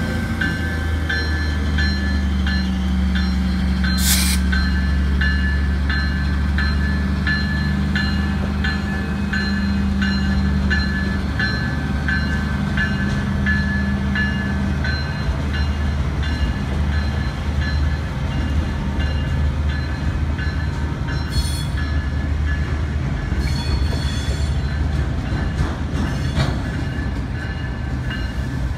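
Diesel locomotive running as it moves slowly past, then freight cars rolling by. A high ringing tone pulses about every two-thirds of a second throughout, and there is one sharp bang about four seconds in.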